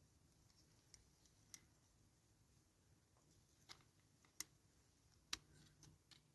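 A handful of faint, sharp plastic clicks as a model car's spare-wheel clips are pressed into its black plastic base by hand, the last two clicks the loudest.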